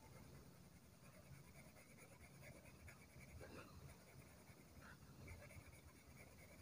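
Faint scratching of a pencil on paper as areas of a drawing are shaded darker in layers.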